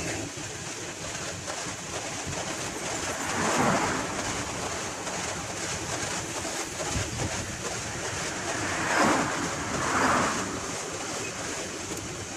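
Freight train of hopper wagons rolling past: a steady rushing rumble of wheels on the rails that swells louder a few times as the wagons go by.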